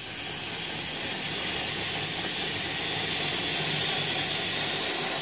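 Modified welding torch burning LPG mixed with compressed air instead of oxygen: a steady hiss of the jet flame that grows louder over the first second or so, then holds.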